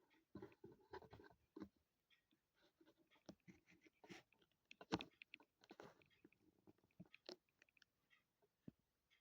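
Faint, scattered small clicks and taps of hands handling a laptop's plastic parts during reassembly, with a sharper knock about five seconds in.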